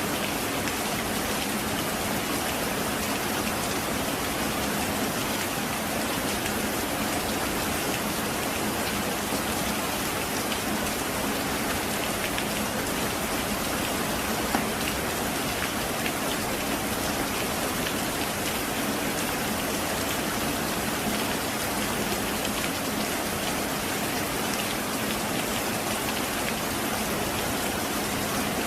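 Heavy rain falling steadily, an even unbroken hiss of drops with one brief louder tick about halfway through.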